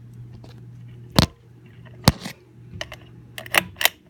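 Hampton Bay Hawkins ceiling fan motor giving a steady low hum, broken by four sharp clicks; the hum dies away just before the end. The fan's capacitor has failed, so its low and medium speeds make no difference.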